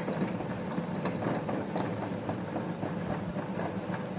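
Ultra table-top wet grinder running, its stone rollers grinding soaked urad dal and fenugreek into idli batter. A steady motor hum with faint irregular ticks.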